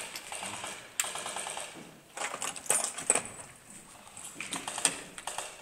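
Airsoft guns firing in rapid full-auto bursts, a quick rattle of shots, several bursts in a row.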